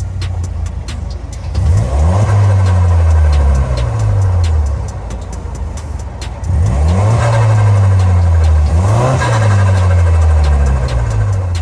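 Stage 2 tuned Peugeot 208 GT's 1.6 THP turbo four-cylinder revved hard twice: the pitch climbs sharply and then falls away over a few seconds each time. A rough fluttering hiss from the turbo is heard as the throttle comes off.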